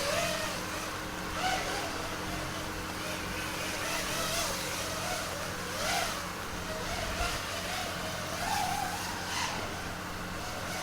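FPV quadcopter's brushless motors whining, the pitch rising and falling every second or so with the throttle.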